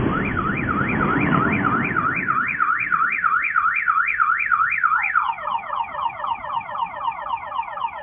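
A car alarm set off by an explosion, wailing up and down about three times a second, then switching about five seconds in to fast falling sweeps about five times a second. The rumble of the blast dies away under it over the first two seconds.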